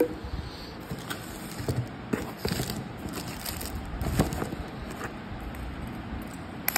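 Packaging being handled: a cardboard parts box and bubble wrap rustling and crinkling, with scattered clicks and a sharper knock about four seconds in.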